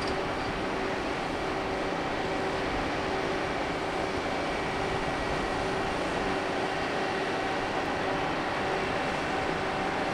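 Steady mechanical drone from a cruise ship's engines and ventilation machinery, an even rumble with a few constant humming tones over it.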